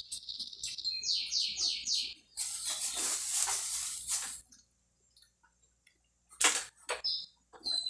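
Dog whining in high-pitched squeals: one drawn-out whine into the first second, then four quick rising squeals, while it begs for food at the table. A rustling burst follows in the middle, and two sharp knocks near the end are the loudest sounds.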